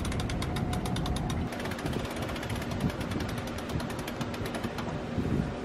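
Rapid, evenly spaced clicking of a sailboat winch's ratchet pawls as the winch is cranked, fading after a second or two, over a steady low mechanical rumble.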